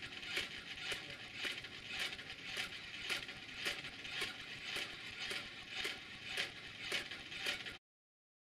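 A person's hand and a Baxter robot's hand clapping together in a steady rhythm, about two claps a second, over a steady background hiss. The claps stop near the end.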